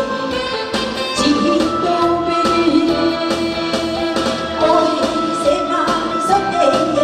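A woman singing a Korean trot song into a microphone over a recorded backing track with a steady beat.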